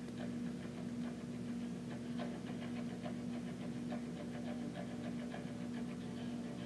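A steady low hum with faint, irregular clicks and rustles scattered through it.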